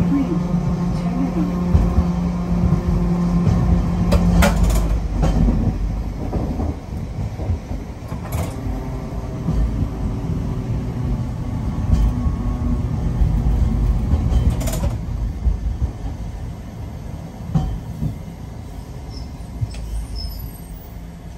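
A Nagasaki Electric Tramway streetcar running on street track, heard from inside the driver's cab: a steady low rumble of wheels on rail, broken by a few sharp clacks over rail joints. It grows quieter near the end as the tram slows.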